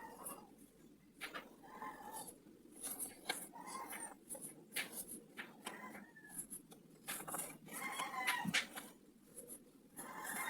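Faint crinkling and rustling of a taped paper squishy as polyester fiberfill is pushed into it, over a low background hiss. Short pitched animal calls sound several times, the loudest about eight seconds in.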